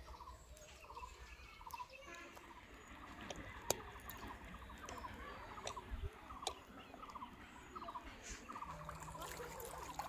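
Faint, short, rattling animal calls repeating again and again, with a sharp click a few seconds in.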